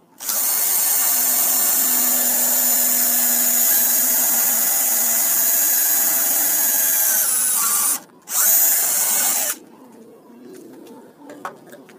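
Bosch 12-volt cordless drill running a stepped pocket-hole bit into wood through a pocket-hole jig: a steady high motor whine for about eight seconds, sagging slightly in pitch near the end as it loads. It stops briefly, then runs again in a short burst of about a second and a half, followed by a few light clicks of handling.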